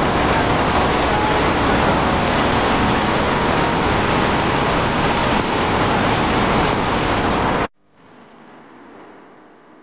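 Wind rushing loudly over a phone microphone on a moving motorbike, mixed with road and engine noise. It cuts off suddenly near the end, leaving only a faint, much quieter hiss.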